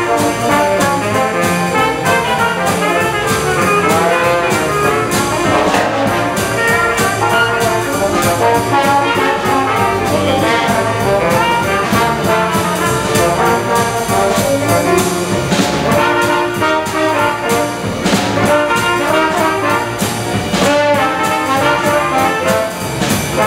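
Live small jazz band playing together: trombone, trumpet and saxophone carrying the tune over piano and drums.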